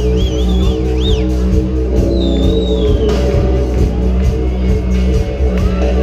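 Live pop-rock band playing, electric guitars over a steady low bass line, with a high wavering melody line in the first second or so.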